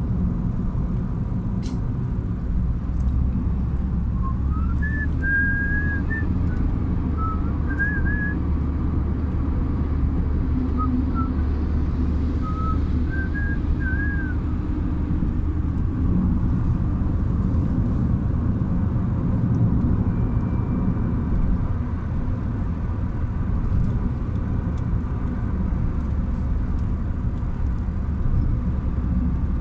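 Steady low rumble of engine and road noise inside a moving car's cabin. From about four to fourteen seconds in, someone whistles a few short notes over it.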